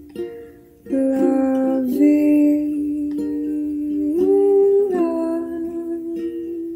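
Soundtrack song: a voice holding long notes, sliding up and back down between them, over ukulele accompaniment.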